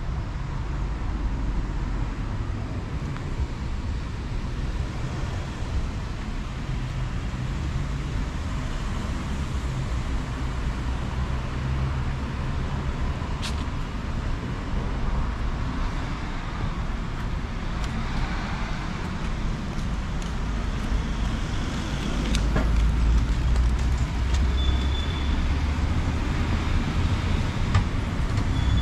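Road traffic passing on a multi-lane road: a steady rumble of car engines and tyres, growing louder about three-quarters of the way through as heavier traffic goes by.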